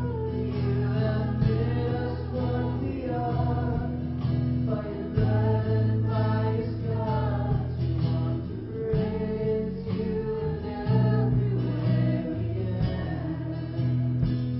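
A Christian worship song: several voices singing over guitar.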